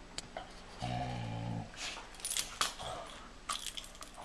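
Doberman and Belgian Malinois play-fighting: a short, low dog growl about a second in, then scuffling with collar tags jingling in quick clicks.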